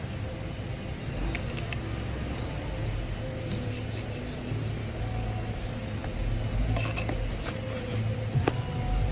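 Gloved hands rubbing and handling a threaded oil filter housing cap against a shop rag, with a cluster of light clicks about a second and a half in and another about seven seconds in, over a steady low hum.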